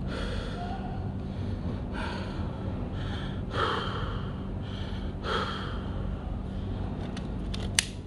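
A person breathing out near the microphone, several soft breaths over a steady low hum, then one sharp click just before the end.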